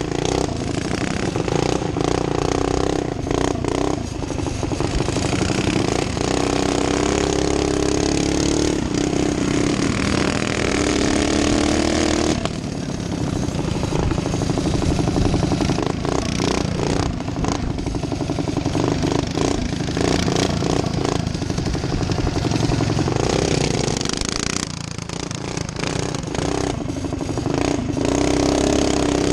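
Small engine of a modified racing barstool, heard from a camera mounted on it, run hard around a dirt track: its pitch climbs under throttle and drops sharply twice, about twelve seconds in and again about twenty-five seconds in, when the throttle is lifted for the turns. Frequent knocks from the bumpy ride run through it.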